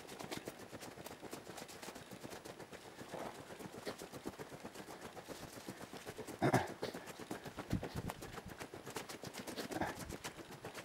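Footsteps walking briskly along an earth woodland path, a steady run of quick, soft steps, with a louder burst about six and a half seconds in.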